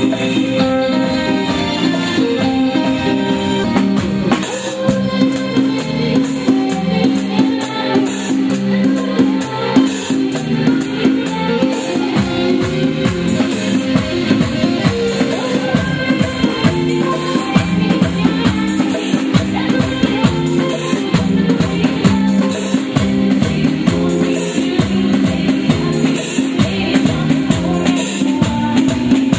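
Live stage band playing a fast song: held keyboard notes over drums and hand percussion, the percussion coming in thickly about four seconds in.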